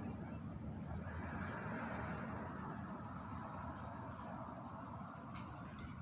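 Outdoor woodland ambience: a steady low rumble and soft hiss, with faint, short, high bird chirps a few times.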